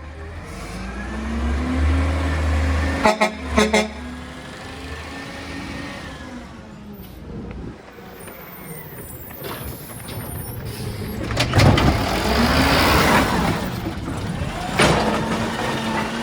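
Recycling collection truck's diesel engine running, with two short horn honks about three seconds in. Later the truck grows louder with a broad rushing noise as it moves close.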